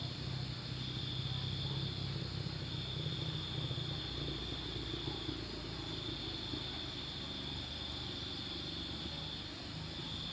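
Night insects, crickets, trilling steadily on one high note in long stretches with short breaks. Under them a low engine-like hum is strongest in the first half and fades about halfway through.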